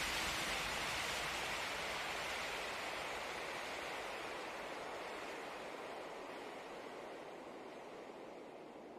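A steady hiss that fades out slowly and evenly.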